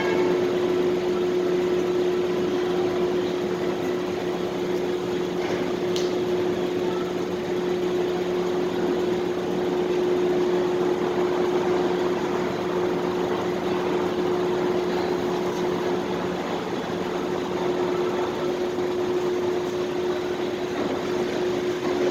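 Parking-garage ambience: a constant machine hum, like ventilation fans, over an even wash of noise, with one brief click about six seconds in.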